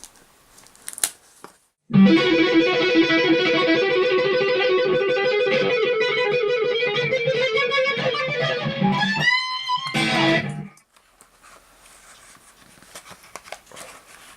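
Guitar music that cuts in suddenly about two seconds in, plays for roughly nine seconds with a rising pitch slide near the end, and stops abruptly. Faint clicks and handling noise before and after it.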